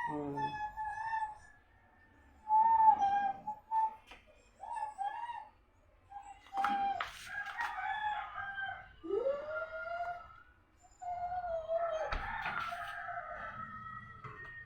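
Chickens calling: a string of drawn-out, pitched calls with short pauses between them, one rising call about nine seconds in.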